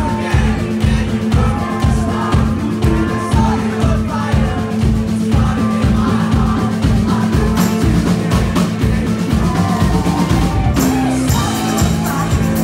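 Live band playing through a club PA, heard from the crowd: a steady kick-drum beat under a held bass note, guitars and keyboards, with singing at times. The bass line changes shortly before the end.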